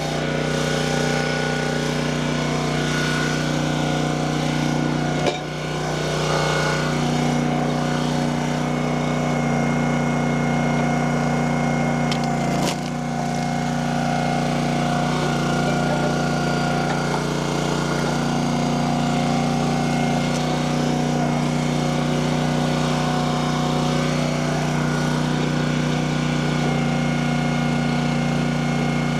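Small gasoline engine of a log splitter running steadily, with two brief dips in its sound about five and twelve seconds in.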